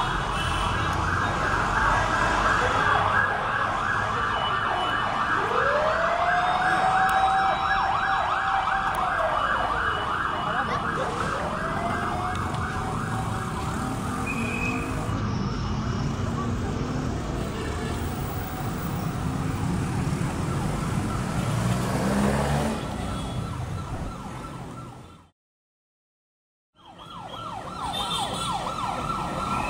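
Emergency vehicle sirens sounding at a fire: a fast, steady warbling tone throughout, with two long wails that rise, hold and fall about a third of the way in. The sound cuts out completely for about a second and a half near the end.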